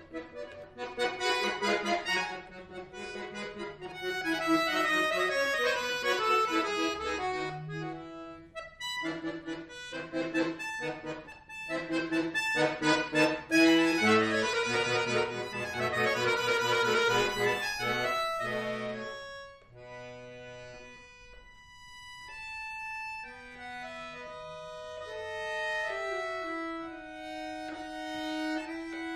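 Chromatic button accordion played solo: fast, detached chords and quick running passages, then about two-thirds of the way through a softer, slower passage of long held notes.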